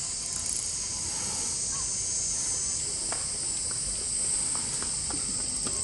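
A steady, high-pitched chorus of insects buzzing, thinning slightly about three seconds in, with a few faint scattered clicks.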